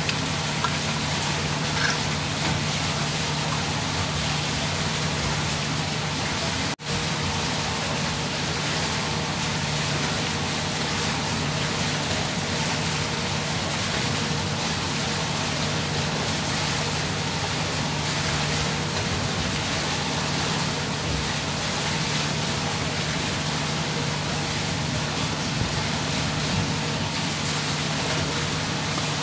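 Steady low machine hum under a constant rushing noise, which drops out for an instant about seven seconds in.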